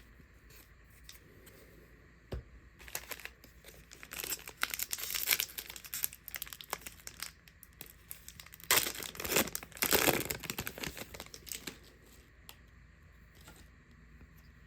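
Foil wrapper of a Donruss football card pack being torn open and crinkled, in two spells of crackling rustle, the second one louder, with a single tap before them.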